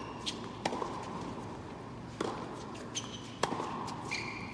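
Tennis rally on an indoor hard court: a tennis ball struck by rackets and bouncing on the court, a sharp pop every second or so, each echoing briefly in the hall. The loudest hit comes about three and a half seconds in.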